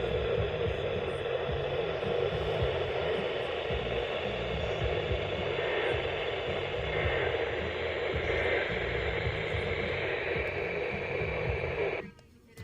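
Radio static: a steady hiss from a weather-radio receiver between transmissions, cutting out abruptly about twelve seconds in.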